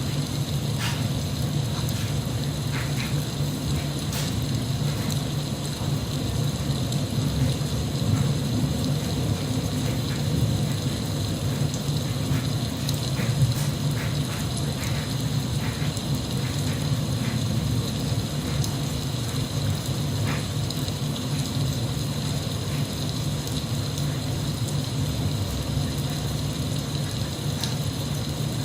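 Steady rain ambience with scattered drips and ticks.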